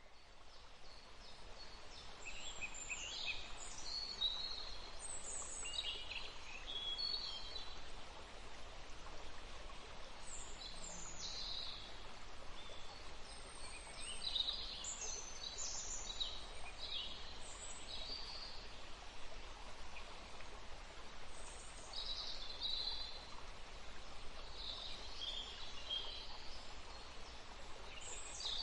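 Small songbirds chirping and trilling in quick, scattered calls over the steady rush of a small river, fading in over the first couple of seconds.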